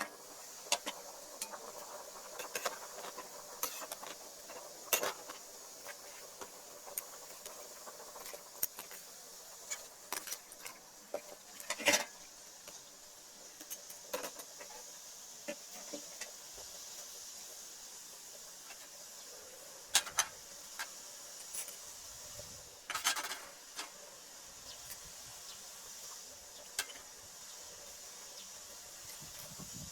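Food sizzling in a pan with a steady high hiss, with scattered clicks and knocks of a utensil against the pan; the sharpest knocks come about twelve, twenty and twenty-three seconds in.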